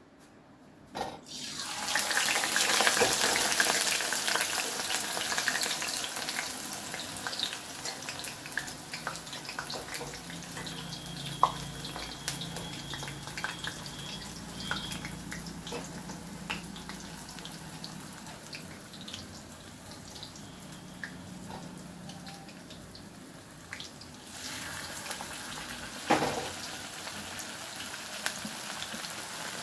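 Batter-coated pumpkin flowers deep-frying in hot oil in an iron kadai: a loud sizzle starts about two seconds in as a piece goes into the oil and slowly dies down. It flares up again near the end as another battered flower goes in.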